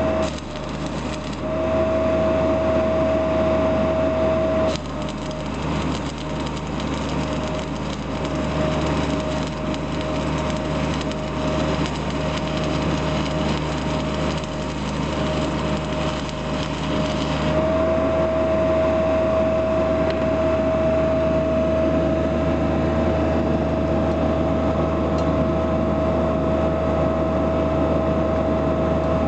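Soundproofed Denyo DCD-270SS engine welder-generator running steadily while a stick-welding arc crackles and sizzles against steel plate. The arc crackle stops a little past halfway, leaving the generator's steady hum.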